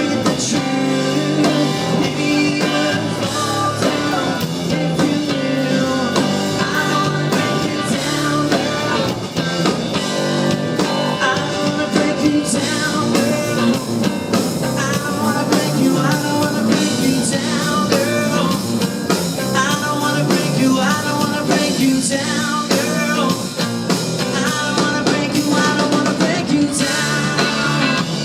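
Rock song with drum kit and electric guitars playing steadily; from about the middle on, a bending lead line runs over the band, a guitar solo or a voice.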